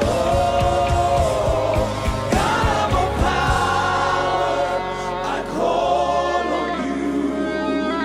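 Live gospel worship music: voices hold long notes over keyboards and bass guitar, with drum strokes in the first few seconds that then drop away, leaving sustained bass notes.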